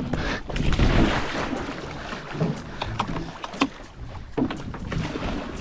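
Scattered knocks and clicks from a person handling a Sea-Doo Spark jet ski as it sits in the water, over a low rumble.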